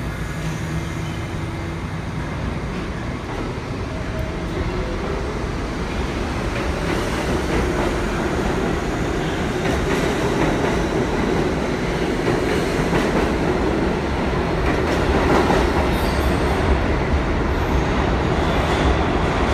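R68 subway train pulling out of the station, with a steady rumble and wheel clicks that grow louder as it picks up speed.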